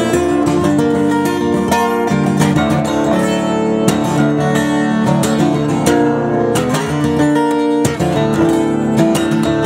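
Twelve-string acoustic guitar strummed in fast, dense chord strokes, an instrumental passage with no singing.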